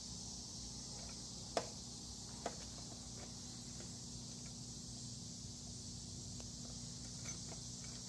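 Faint steady high-pitched hiss over a low hum, with two light clicks about one and a half and two and a half seconds in.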